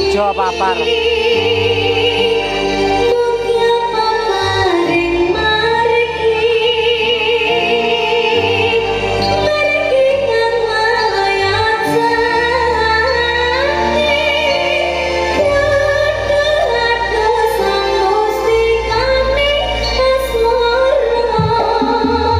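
Live campursari music: a woman sings long held notes with vibrato over a gamelan-and-band backing of metallophones, guitars, keyboard and drums, with a steady bass line.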